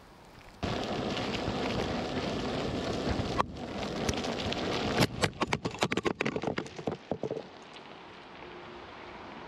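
Veteran Sherman electric unicycle's tyre rolling over a gravel track, a loud gritty rolling noise. Between about five and seven seconds it breaks into a run of sharp crackles and clicks, then falls away to a quiet hiss.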